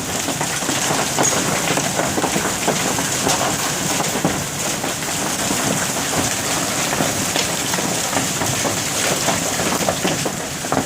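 Hailstones and heavy rain pelting down, a dense, steady clatter of many sharp strikes over the hiss of the rain. The stones are large, near golf ball size.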